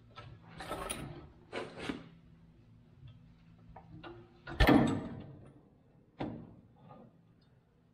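Eaton Fuller 18-speed truck transmission being worked back off the bell housing on a transmission jack: two short sliding scrapes, then a loud metal clunk with ringing about four and a half seconds in, and a lighter knock a second and a half later.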